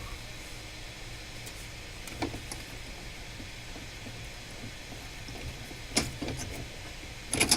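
Light clicks and knocks over a steady low hum: one about two seconds in, a few around six seconds, and a louder cluster near the end.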